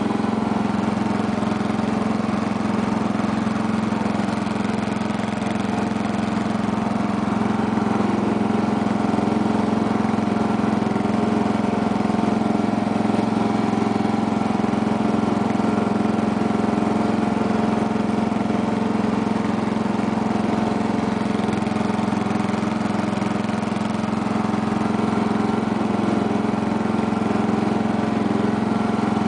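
A 1975 Sears lawn tractor's 8 hp Briggs & Stratton single-cylinder engine running at a steady speed while the tractor is driven.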